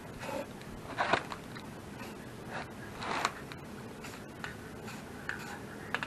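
Aerosol spray-paint can spraying in short hissing bursts, the two strongest about a second and three seconds in, with fainter short sprays between.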